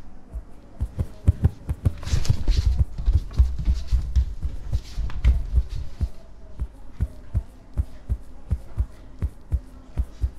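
A heartbeat sound effect: a steady run of low, pounding thumps, with a louder rushing swell from about two to six seconds in.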